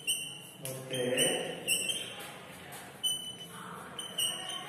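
Chalk writing on a blackboard: scraping strokes with several short, high-pitched squeaks as the chalk drags.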